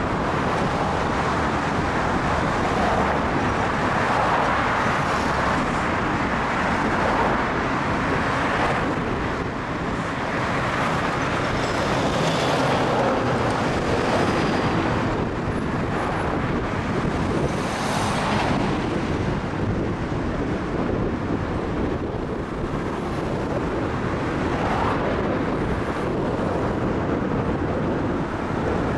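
Road traffic: a steady rush of cars and trucks driving past on a busy street, swelling several times as single vehicles go by.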